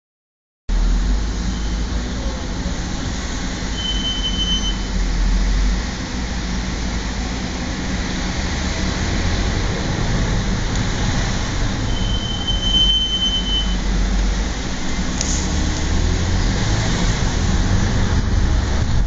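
Audi S4 B8 brakes squealing: two high-pitched, steady squeals, each about a second and a half long, about four seconds in and again about twelve seconds in, with a faint one before them, over steady driving noise.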